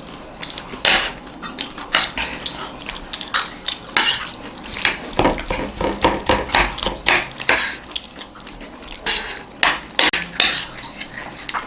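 Spoons clinking and scraping against plates in quick, irregular clicks while food is eaten fast.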